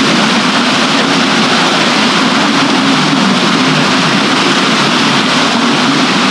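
Water rushing steadily over a water wheel and along a river, loud and even, with a wavering low churn underneath.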